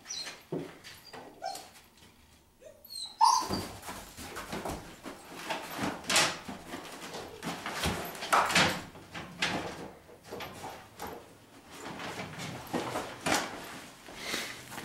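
Dog whining briefly a few times, then a sharp knock about three seconds in and a run of sniffing and knocking as it searches for a scent among stored things.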